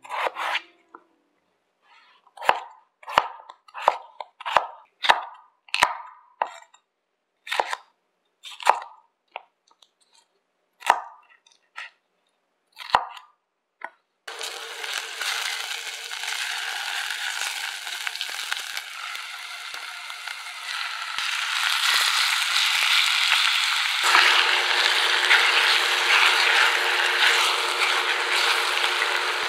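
Chef's knife chopping potato and bell pepper on a wooden cutting board: about a dozen separate knocks with gaps between them. About halfway through, a steady loud hiss with a faint hum takes over and grows louder near the end. This is chicken pieces sizzling as they are stirred in a clay pot.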